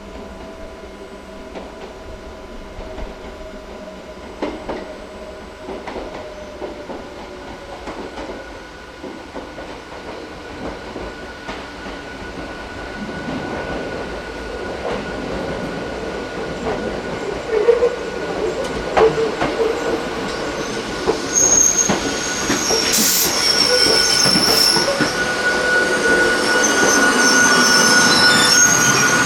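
A Hakone Tozan Railway electric train approaching and growing steadily louder. Its wheels give a high, steady squeal on the track, with sharp clicks and knocks over the rails, both becoming stronger in the second half.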